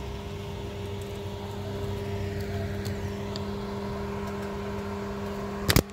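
Ford Transit Connect van's engine running steadily at low speed as it pulls in, with a steady hum and low rumble. A sharp knock near the end.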